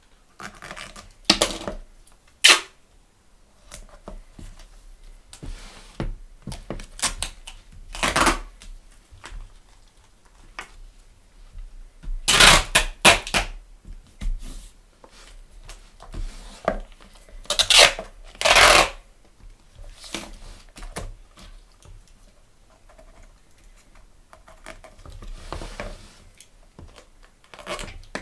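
Adhesive tape being pulled off a roll and torn in several short noisy strips, among scattered taps and clicks of hands working on a book's pages and cover.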